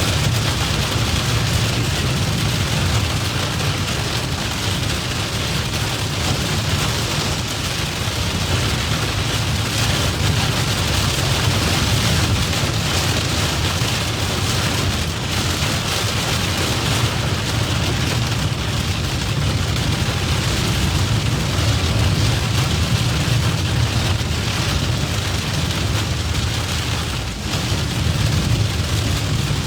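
Heavy rain pelting a car, heard from inside the moving vehicle as a steady hiss over a low road and engine rumble.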